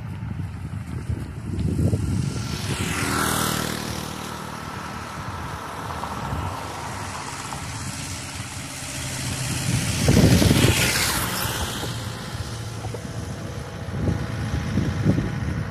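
Road traffic passing close by: one vehicle goes past about three seconds in and a louder car about ten seconds in, with wind buffeting the microphone throughout.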